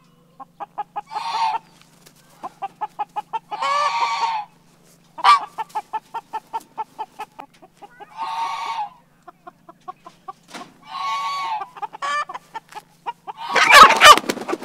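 American Bresse chickens clucking in quick runs of about six clucks a second, broken every few seconds by longer squawks, the alarm calls of birds being disturbed and handled. Near the end comes a loud squawk with a burst of wing flapping as a rooster struggles in a person's hands.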